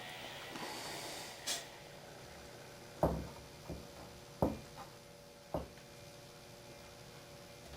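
A soft hiss at the start, then five short wooden knocks and taps, the two loudest about three and four and a half seconds in: wooden loose tenons and parts being handled and set into glued mortises.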